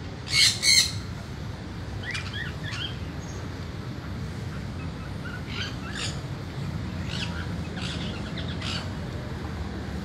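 Sun conure giving two loud squawks in quick succession about half a second in, then softer, scattered chirps.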